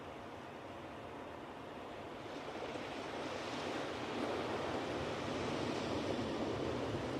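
Ocean surf washing onto a beach: a steady hiss of water that swells from about two seconds in as a wave comes in and stays louder to the end.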